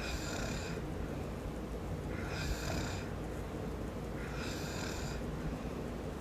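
A man snoring in a steady rhythm: three snores about two seconds apart, each under a second long, over a constant low rumble.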